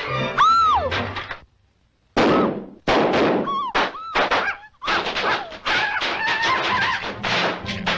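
Cartoon sound effects of popcorn popping out of a pan of burnt cookies: loud sudden pops that turn into a rapid, dense crackle in the second half. A short rising-and-falling whistle-like cry comes near the start.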